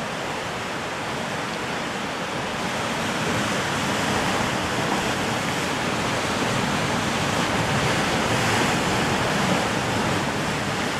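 Sea surf washing and breaking against a rocky lava shoreline: a steady rush of water that grows a little louder a few seconds in.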